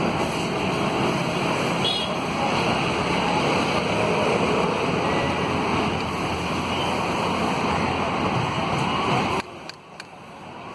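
Steady background roar of street traffic with faint voices, dropping off suddenly about nine and a half seconds in.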